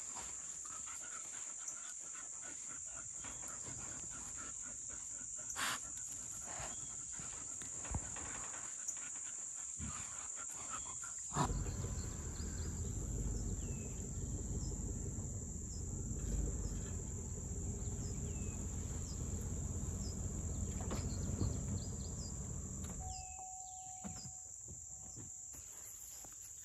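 Insects chirring outdoors in a steady high-pitched drone. A low rumbling noise comes in about halfway through and drops away again near the end.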